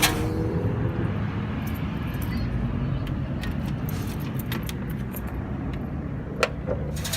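1966 Mustang's engine running at a low, steady idle, the rapid rattling noise that followed the AOD transmission swap absent, with scattered light metallic clicks over it. The loud rattle cuts back in suddenly at the very end.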